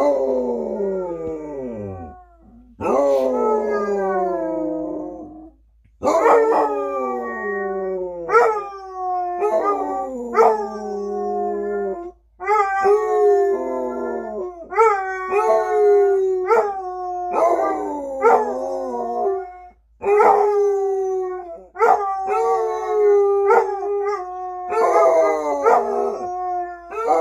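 Two basset hounds howling in a long run of howls, each one sliding down in pitch, with short breaks between them and at times the two voices overlapping.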